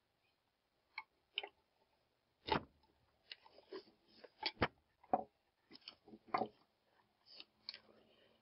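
A dozen or so short, irregular clicks and knocks, with some light plastic rustling, from hands handling a soldering iron, its station and a plastic-bagged part while unpacking them.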